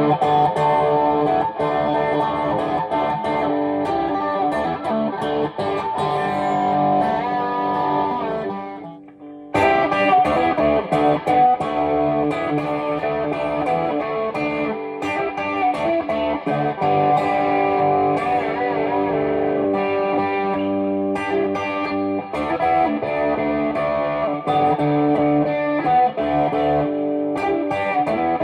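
Electric guitar, a Fender Custom Telecaster in open G tuning, playing chords and riffs with a lightly driven tone. About nine seconds in the sound dies away briefly before a new chord is struck.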